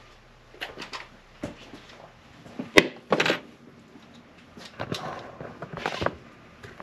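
Scattered clicks and knocks of tools and parts being handled at a key-cutting bench, the sharpest knock about three seconds in.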